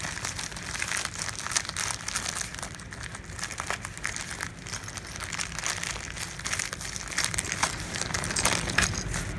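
A white mailer bag crinkling and rustling in the hands as it is worked open to get a parts kit out, with many small irregular crackles.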